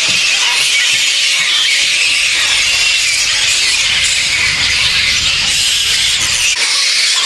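A roosting colony of fruit bats (flying foxes) squabbling, many high squeals and shrieks blending into a continuous din.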